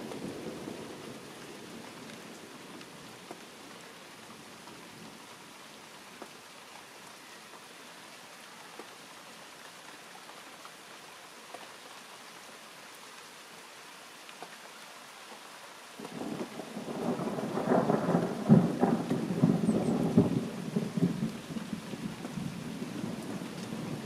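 Thunderstorm: a thunder rumble dies away over steady rain. About two-thirds of the way in, a sudden loud clap of thunder breaks out, crackling and rumbling for several seconds before it fades back toward the rain.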